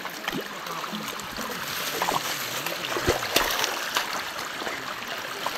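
Shallow stream running over stones, with scattered splashes and a few sharp knocks as stones are shifted in the water.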